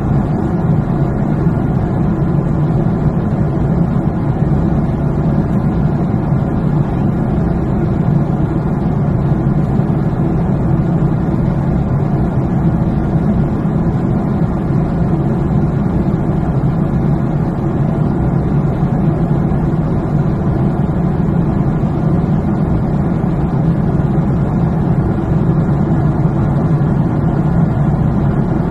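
Steady airliner cabin noise: the low drone of jet engines and airflow heard from inside the cabin during descent, unchanging throughout.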